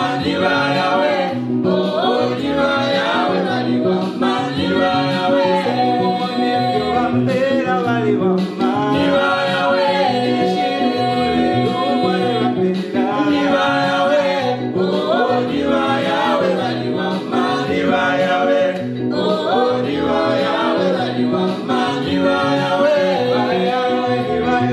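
Gospel song sung in harmony by a small group of men's and a woman's voices over electronic keyboard accompaniment, with a steady, repeating bass line underneath.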